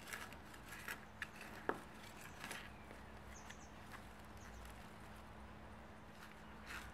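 Hand trowel digging into soil and bark mulch: a few soft scrapes and crunches in the first couple of seconds, then quieter rustling as gloved hands firm the soil around a plant.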